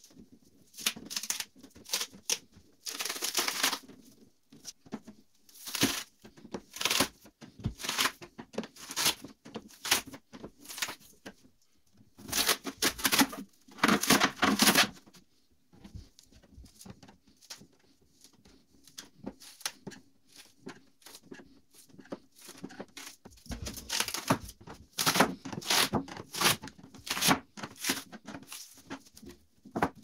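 Screwdriver prying a thin metal sheet off a refrigerator panel where it is stuck down with foam: irregular bursts of scraping, crinkling metal and foam tearing away, with short pauses between efforts.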